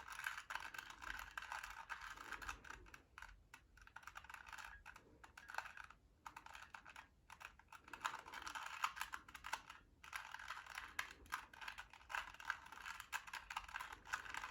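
2x2 Rubik's cube being turned quickly by hand, its plastic layers clicking and rattling in rapid runs broken by a few short pauses.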